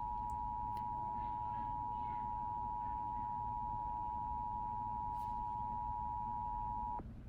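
Emergency Alert System attention tone: one steady electronic alert tone held for about eight seconds, cutting off sharply near the end, the signal that an alert message follows.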